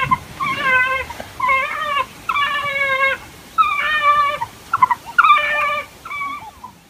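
African wild dogs (painted dogs) giving a string of high-pitched, whining calls, about one a second, each lasting around half a second; the last one is fainter.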